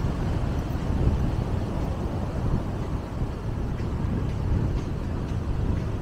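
Strong wind buffeting the microphone, a steady low rumble.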